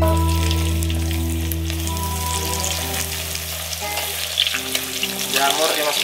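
Cubes of tempeh hissing and sizzling in hot oil in a wok as they are tipped in from a bowl and pushed around with a spatula.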